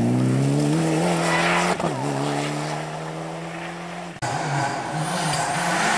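Mitsubishi rally car engine pulling hard, its revs climbing, with a quick gearshift about two seconds in. It then climbs again more slowly and fades as the car drives away. A sudden cut just after four seconds brings in another rally car engine, its revs rising and falling.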